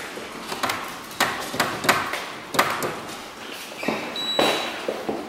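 A string of irregular knocks and taps, roughly two a second, joined about four seconds in by a steady high-pitched tone that holds on.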